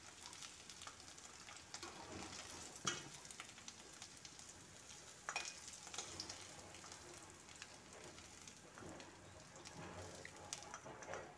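Faint sizzle of oil frying boiled potato pieces in a metal kadhai, with a few sharp scrapes and taps of a metal spatula against the pan as the pieces are lifted out.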